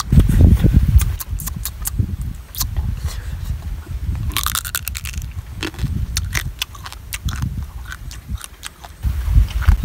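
A person biting and chewing a cooked crab close to the microphone: crunches and cracks of shell and wet mouth clicks, over a loud low rumble that is strongest in the first second.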